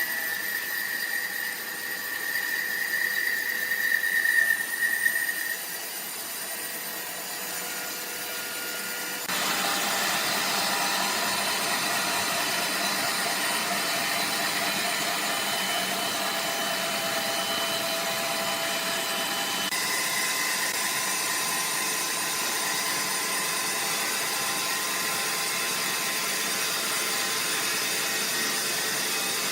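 Sawmill machinery running with a steady hiss and hum, a high whine over it for the first few seconds; the sound steps abruptly louder about nine seconds in and shifts again near twenty seconds.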